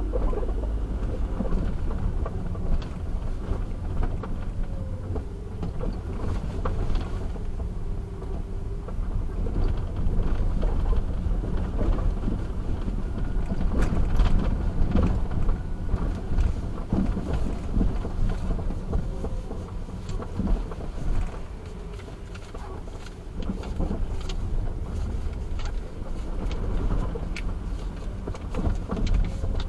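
Car cabin road noise while driving in city traffic: a steady low rumble of engine and tyres, with scattered small knocks and rattles as the car rolls over the street surface.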